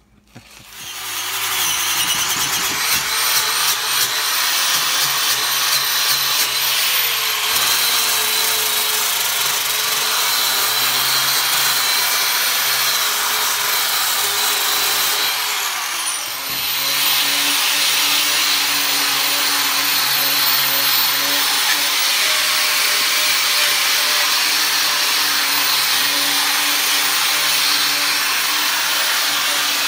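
Angle grinder running against a cast copper bar, grinding and cleaning its surface with a steady high whir. From about sixteen seconds in, a small orbital sander takes over, sanding the bar with a steady hum.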